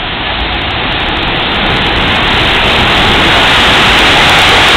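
JR Freight EF210 electric locomotive hauling a train of oil tank cars passing close by: a wide, steady rush of wheels on rail that grows louder as the locomotive comes alongside, with a few light clicks in the first two seconds.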